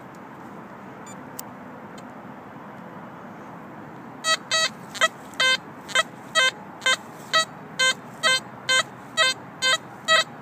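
XP Deus metal detector beeping on a deep buried target as the coil is swept over it: after a few seconds of faint steady hiss, a regular run of short pitched beeps, about two a second. The target turns out to be an iron spike.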